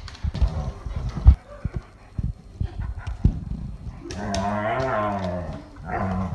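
Airedale terriers play-fighting: paws scrabbling and knocking on a wooden floor, then about four seconds in a long, low, wavering play growl lasting over a second, and a shorter growl near the end.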